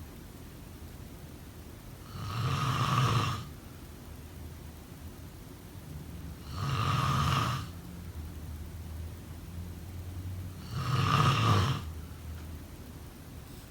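Snoring in a slow, even rhythm: three snores about four seconds apart, each lasting about a second. A faint steady hum fills the gaps between them.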